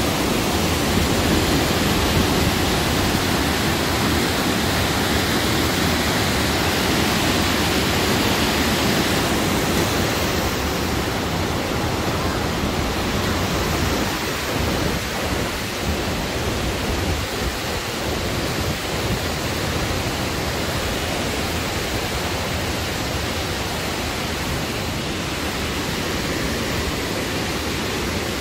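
Waterfall cascading over boulders: a steady, loud rush of white water, a little softer after about ten seconds.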